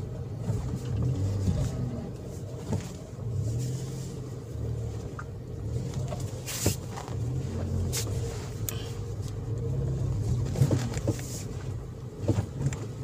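A Toyota Vios heard from inside the cabin while driving: its engine hum and road noise, with the engine note shifting up and down as the throttle changes. A few light clicks are heard through it.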